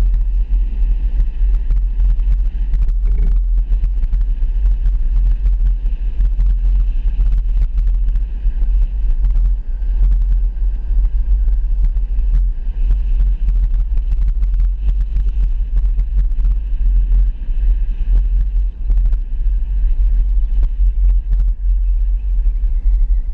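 Car driving at street speed, heard from a camera mounted on its hood: a loud, steady low rumble of the vehicle and its tyres on the road.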